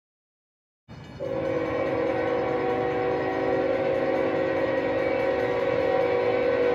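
Locomotive air horn sounding one long, steady chord of several notes, starting suddenly about a second in, over the rumble of the train.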